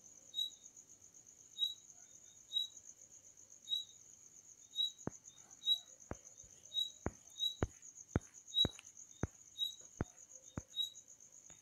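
Crickets chirping steadily: a continuous high trill with a shorter chirp about once a second. From about halfway, a run of about a dozen sharp clicks comes in.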